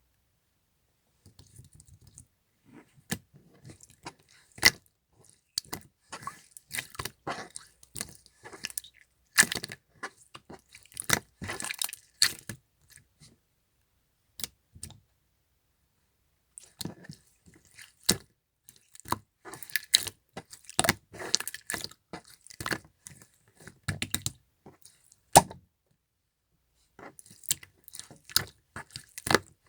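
Clear slime being squeezed and pressed by hand, giving runs of sticky clicks and crackles with occasional sharp pops as trapped air bursts, paused twice for a few seconds.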